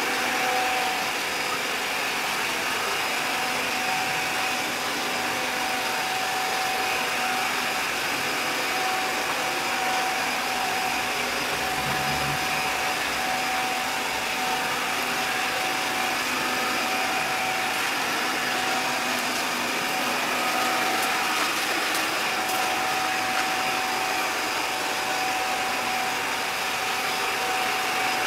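ILIFE A4 robot vacuum running on a hard floor: a steady whirr of its suction fan and brushes with a thin whine that drops out now and then.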